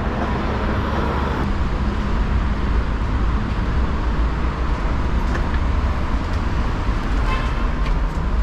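Steady rumbling street noise: road traffic together with a hard-shell suitcase's wheels rolling over the pavement. A few light clicks come near the end.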